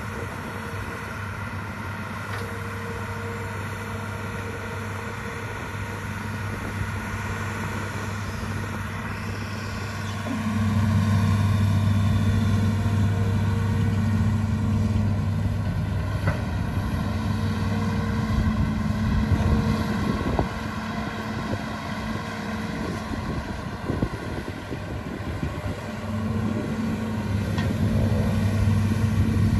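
Hitachi ZAXIS 210LC long-reach excavator's diesel engine running, its note rising under hydraulic load about a third of the way in, easing off for a few seconds, then rising again near the end.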